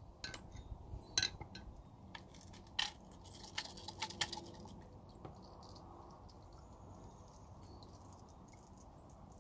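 Small metal parts being handled, clinking and clicking lightly a dozen or so times over the first five seconds, the sharpest about a second in and near three seconds.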